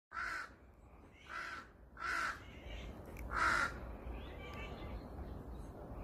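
Crow cawing four times, harsh caws about a second apart, the last one the loudest. Fainter bird calls follow near the end.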